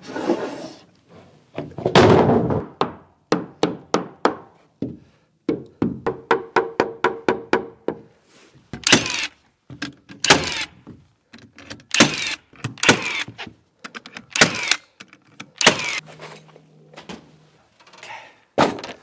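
Carpentry knocking on a wooden porch frame. A quick run of light taps comes about halfway through, followed by a series of heavier, separate thuds and whacks, like hammer work.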